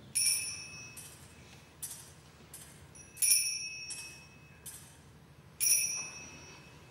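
Altar bells rung at the elevation of the consecrated host: three main shaken rings about two and a half to three seconds apart, each a bright jingle whose high tones fade, with lighter jingles between.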